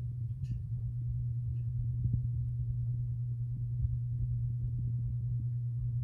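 Hunter Builder Plus ceiling fan running: a steady low motor hum with a low rumble underneath and a few faint ticks.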